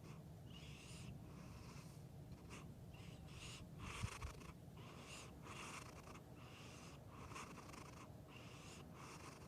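Domestic cat snoring softly in its sleep: a short, breathy snore with each breath, about one a second, over a faint low hum. A single soft thump about four seconds in.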